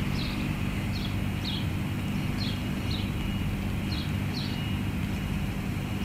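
A steady low mechanical hum, with short high chirps repeating about twice a second over it.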